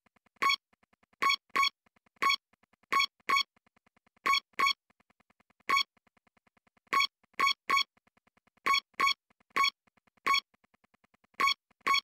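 Electronic end-screen music: short, clipped synth notes repeated at one pitch in an uneven, syncopated rhythm, with a faint soft ticking beat underneath.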